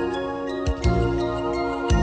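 Background music with bright chiming, bell-like notes over a steady beat.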